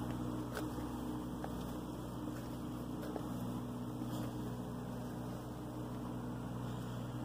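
Steady, unchanging low engine drone, typical of the Valley View Ferry's diesel boat idling across the river.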